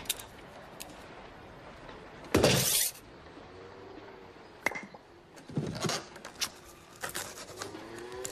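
Film sound effects of handling and movement, with no words or music. A loud, noisy rush lasting about half a second comes about two seconds in, then scattered clicks, knocks, a shorter rustling burst and faint squeaks.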